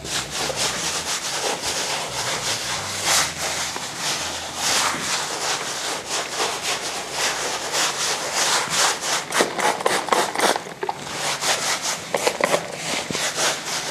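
A large brush scrubbing wet glaze over rough sandstone-textured plaster in quick, repeated back-and-forth strokes. The bristles make a scratchy brushing noise against the gritty surface.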